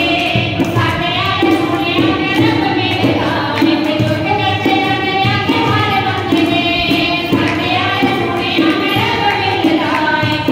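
A song: a singer's melody over instrumental accompaniment with a steady beat.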